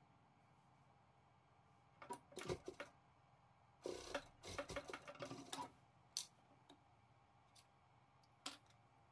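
Scattered, irregular clicks and taps of fabric and small tools being handled at an industrial sewing machine, in two short clusters. A single sharp snip of thread snips comes near the end.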